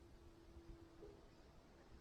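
Near silence, with a faint steady tone that fades out about a second in.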